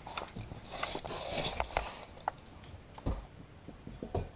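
Footsteps and rustling handling noise, with scattered light knocks, a stretch of rustling about a second in, and two dull thumps near the end.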